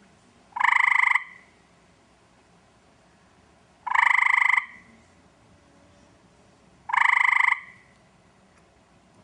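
Eastern gray tree frog giving its short musical trill three times, each about half a second long and roughly three seconds apart. This is the male's mating call.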